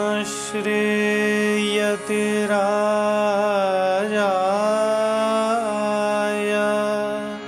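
A man's voice chanting a devotional Sanskrit invocation in long held notes that glide between pitches, over a steady drone.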